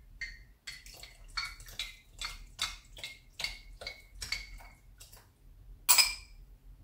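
Metal teaspoon clinking and scraping against a glass jar as flour-and-water batter is spooned out, in quick repeated ringing taps, about two or three a second, with one louder clink near the end.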